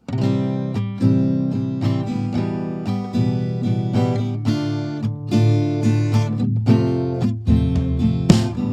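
Music: an acoustic guitar playing plucked and strummed chords, starting abruptly.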